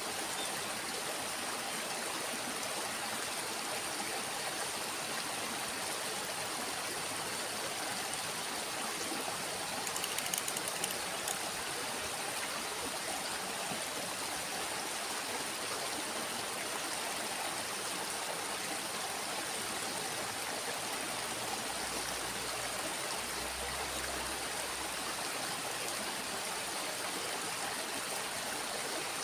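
Small stream flowing steadily, an even rush of water, with a few faint clicks about ten seconds in.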